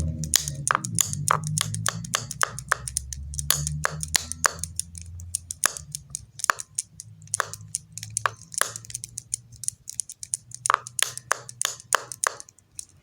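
Rapid, irregular sharp clicks and taps on a hard object, about two to four a second, over a low hum that fades out about six seconds in.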